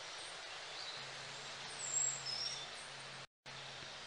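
Faint outdoor forest ambience: a steady low hiss with a couple of short, high bird chirps about two seconds in, and a brief dropout of all sound about three seconds in.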